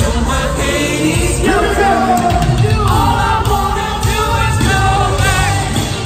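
Live pop music over an arena sound system: a lead singer over a band track with a strong bass beat.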